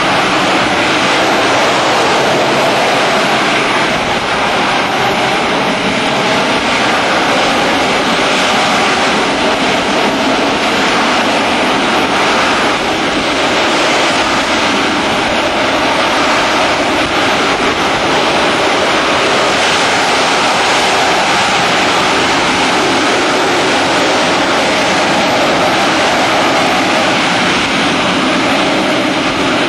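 AV-8 Harrier's Pegasus vectored-thrust turbofan running steadily as the jet hovers, a loud, even jet noise with no breaks.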